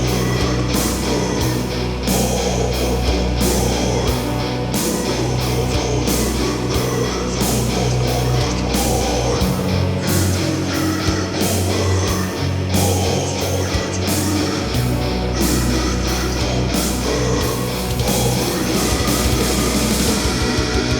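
Heavy metal music: a full band mix of guitars and drums with a steady beat. The deepest bass drops out for about five seconds in the middle, then returns.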